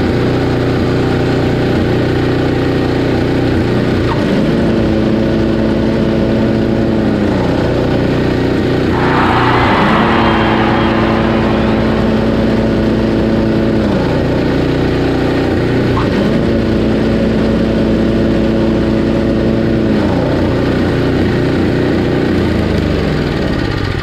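Craftsman 522 snowblower's 5 hp Tecumseh Snow King engine running at high speed. A whine rises in, holds for a few seconds and falls away three times, with a brief harsher rasp about nine seconds in.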